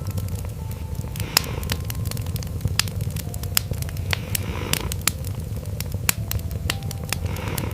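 Wood fire crackling with frequent sharp irregular pops over a cat's steady low purr.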